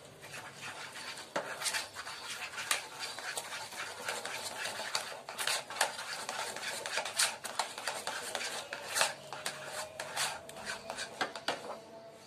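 Steel spoon stirring flour and water into a batter in a bowl: irregular scraping and clicking of the spoon against the bowl as the lumps are worked out.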